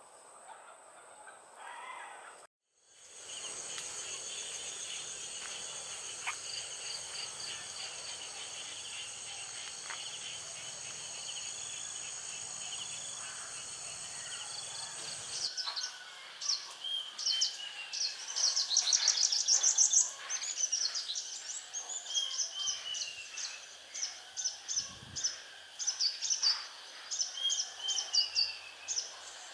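Forest ambience: a steady high-pitched insect drone, then, after an abrupt change about halfway, many short, sharp bird calls, some dropping in pitch, repeating irregularly.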